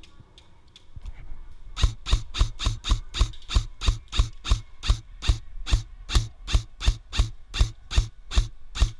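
Airsoft rifle fired semi-automatically again and again, a sharp crack with a low thump on each shot, about three and a half shots a second, starting about two seconds in.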